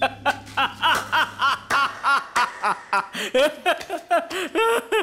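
A man laughing tauntingly in a long, even run of 'ha' pulses, about three a second.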